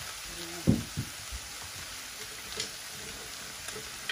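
Chopped turkey breast sautéing in hot oil in a wok, a steady frying sizzle, with two dull thumps about a second in.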